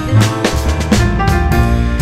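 Background music with a drum beat, bass line and keyboard notes.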